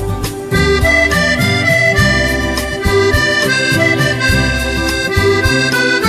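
Instrumental background music led by an accordion, playing a melody of held notes over a pulsing bass.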